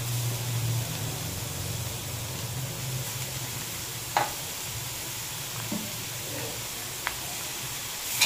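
Grated carrot and beetroot frying in oil in a wok, a steady sizzle as a steel spatula stirs them. Two sharp clinks of the spatula against the pan, about four and seven seconds in.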